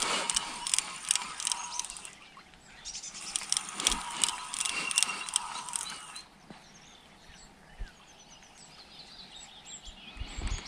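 A carp rod's spinning reel being wound in, with rapid clicking and a steady gear whine, in two spells that stop about six seconds in. After that, birds chirp faintly.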